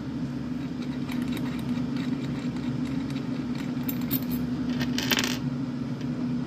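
Metal bait injection mold being handled, with light metallic clinks and a short scrape about five seconds in, over a steady low hum.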